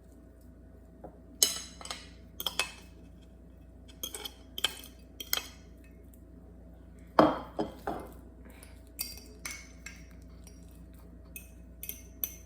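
A metal utensil clinking and tapping irregularly against a bowl, as in mashing bananas by hand. There is a heavier knock about seven seconds in.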